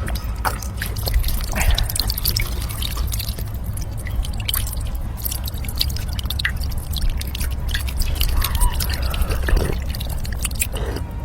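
A person drinking: a run of wet gulps and swallows with many small sharp mouth clicks, over a steady low hum.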